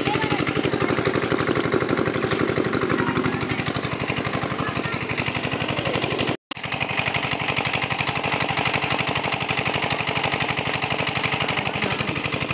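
A small engine running steadily with a fast, even chugging pulse. It drops out for a split second about six seconds in.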